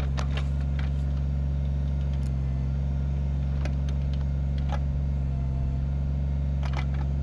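Kubota BX25D compact tractor's three-cylinder diesel engine running steadily, with a few short sharp clicks and knocks scattered over it.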